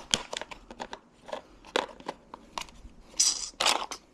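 Rummaging through tools and hardware: scattered clicks and clinks of small hard objects being moved, with two short rustles a little past the three-second mark.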